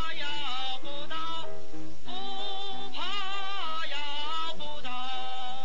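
Background film-score music: a wavering, vibrato-laden melody moving between held notes over sustained lower tones.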